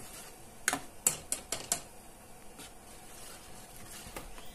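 Steel ladle clinking and scraping against a steel saucepan while stirring thick milk porridge: a quick run of four or five sharp clicks about a second in, then a few fainter taps.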